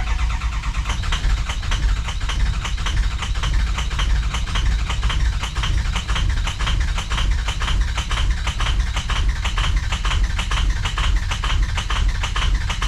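Ford 6.0 PowerStroke V8 turbo-diesel being cranked over by its starter for about thirteen seconds without starting, an even rapid clatter of compression strokes, cutting off abruptly at the end. It is a crank-no-start with an empty fuel rail after the truck ran out of diesel, air still in the rail and fuel only just reaching the injectors.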